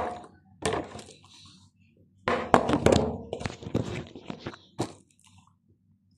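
Partly filled plastic water bottle being flipped, knocking onto a table and a roll of packing tape. There is a thud at the start and another just under a second in, then a quick run of knocks and rattles about two to three seconds in, with a few lighter knocks up to about five seconds.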